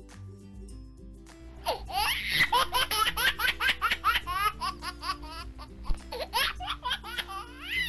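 Background music, joined from about a second and a half in by rapid, high-pitched squeaky giggling that goes on in quick bursts.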